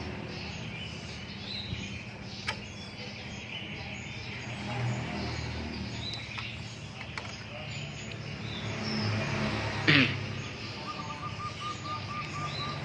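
Workshop background with a steady low hum and birds chirping. There are a few sharp clicks, a sudden loud sound about ten seconds in, and a quick run of about eight chirps a second near the end.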